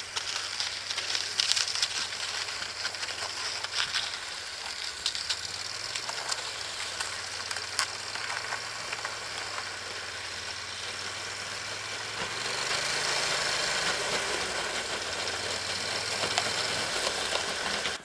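An engine running steadily under a loud hissing rush, its pitch stepping up slightly about twelve seconds in.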